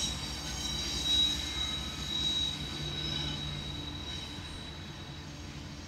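Rear distributed-power GE AC44CW diesel locomotives of a loaded rock train rolling past on a curve. A low engine rumble runs under a steady high wheel squeal, and both fade as the train moves away.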